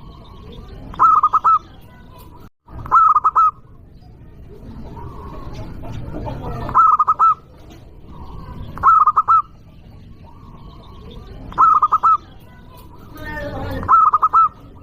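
Zebra dove (perkutut) cooing loudly: a short phrase of rapid rolling notes, repeated six times about every two seconds.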